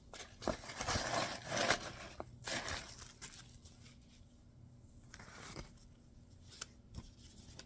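Paper and packaging being handled: rustling and crinkling in bursts during the first few seconds and again around the middle, with a few small clicks and knocks.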